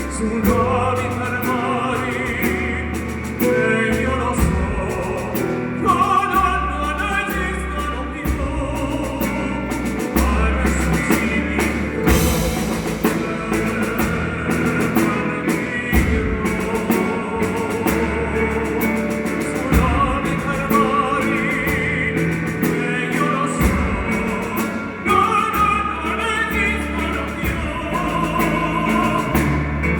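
A song with a sung vocal over a drum kit and a steady bass line.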